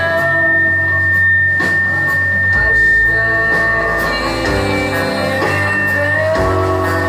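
Live rock band playing: sustained, droning notes, likely from electric guitar, ring over a bass line. The bass drops to a lower note about two and a half seconds in and comes back up about two seconds later.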